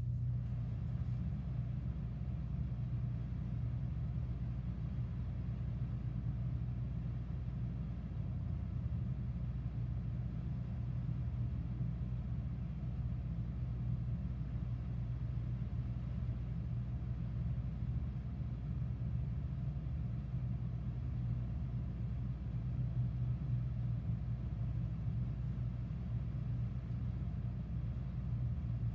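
A steady low mechanical hum with a rumble beneath it, unchanging throughout.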